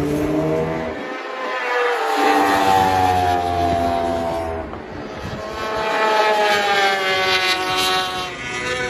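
Endurance superbike race engines at high revs passing by twice. Each pass swells up and drops in pitch as it goes by, the first about two to three seconds in and the second about six to seven seconds in.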